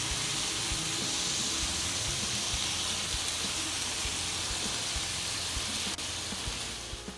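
Mutton liver pieces sizzling steadily in oil on an iron tawa over a medium flame. The sizzle drops away near the end.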